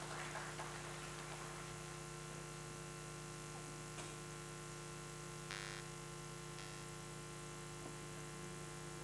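Steady electrical mains hum, with a faint click about four seconds in and a brief faint rustle a little later.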